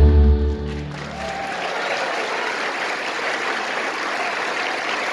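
The final held chord of a live vocal and instrumental performance dies away within the first second, then an audience applauds steadily.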